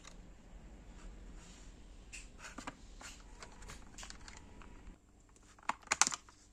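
Hands handling small objects: scattered light clicks and rustles, with a quick cluster of sharper clicks about six seconds in. A low hum underneath stops about five seconds in.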